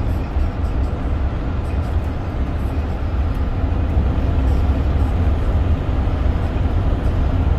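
Steady low rumble of road and engine noise heard inside a moving vehicle's cabin at road speed. It grows a little louder about halfway through, as the vehicle drives through a tunnel.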